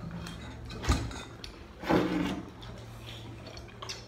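Metal spoons knocking and scraping against stainless steel bowls: a sharp clink about a second in and another short scrape about two seconds in, over a low steady hum.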